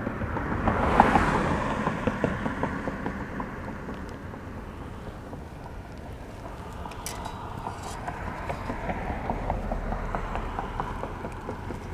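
Road traffic: a vehicle passes, rising and fading about a second in, over a steady traffic background with scattered small clicks and rustles.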